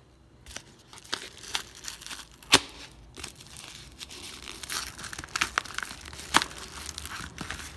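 Padded paper mailer envelope crinkling and rustling as it is handled and opened, in irregular crackles with two sharper ones, about two and a half seconds in and again near six and a half seconds.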